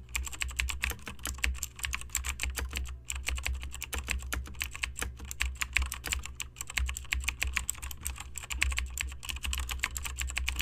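Fast typing on a computer keyboard: a quick, uneven run of key clicks with a couple of short pauses.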